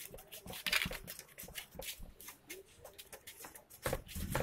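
Dust being brushed off the glass top and coil area of an opened induction cooktop: quick, irregular scratchy strokes, with a louder low bump of handling near the end.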